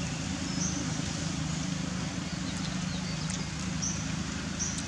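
Outdoor ambience: a steady low drone like a distant engine, with short high chirps now and then.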